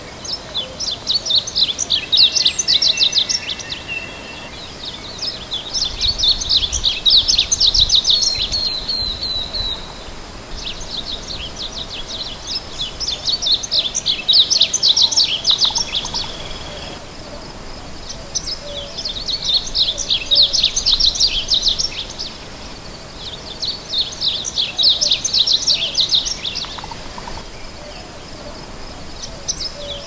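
Male varied bunting singing: a fast, jumbled, high warble repeated about six times, each song lasting around three seconds with short pauses between.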